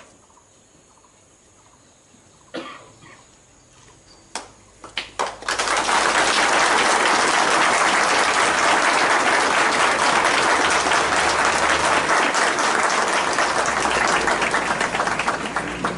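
Large crowd applauding: a few scattered claps at first, then about five seconds in a full, steady round of applause that carries on, easing slightly near the end.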